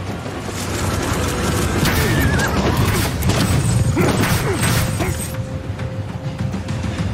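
A horse neighing about two seconds in, over film music and a heavy low rumble of battle effects.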